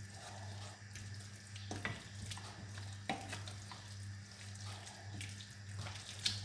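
Wooden spoon stirring a thick shredded-chicken and cream mixture in a stainless steel saucepan, with a few light knocks of the spoon against the pan, over a steady low hum.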